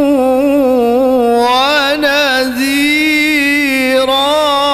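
A man reciting the Qur'an in melodic tilawah style into a microphone, drawing out one long ornamented phrase with a wavering, melismatic pitch.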